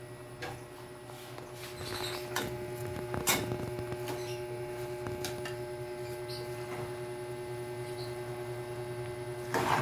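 Cooking utensil tossing and scraping noodles and cabbage in a large metal wok: scattered clicks, knocks and rustling scrapes, the sharpest knock about a third of the way in and a louder scrape near the end, over a steady low hum.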